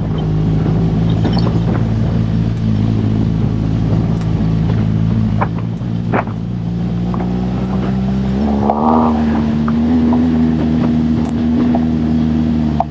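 BMW R1200GS boxer-twin engine running steadily under way on a gravel track. About two-thirds of the way through the revs rise as the rider opens the throttle. Scattered sharp clicks can be heard over it.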